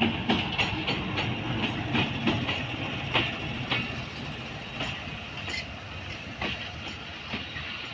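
A Pakistan Railways GEU-40 diesel-electric locomotive and its passenger coaches rolling past close by, the wheels clicking over the rail joints. The sound grows gradually quieter as the locomotive moves away and the coaches follow.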